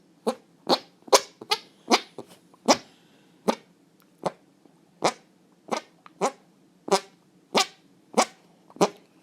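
Armpit farts: a person pumping an arm against the armpit, making a series of about fifteen short fart-like pops, quick at first and then about one every two-thirds of a second.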